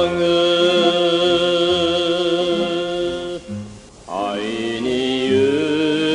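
A man singing long, drawn-out notes with a wavering vibrato in oiwake folk-song style, over a steady low accompaniment. A little past halfway the voice breaks off briefly, then slides up into the next held note.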